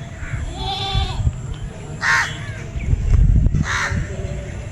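Animal calls: a pitched call about a second in, then two short, harsh calls about two and four seconds in, with a low rumble in between.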